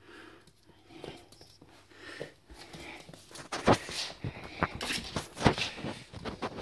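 Scuffling play with a Toy Fox Terrier puppy on a hard laminate floor: soft shuffling at first, then, from about three and a half seconds in, a rapid flurry of sharp clicks and knocks.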